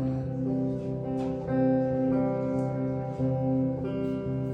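Acoustic guitar playing a slow chord progression, the chords changing about once a second.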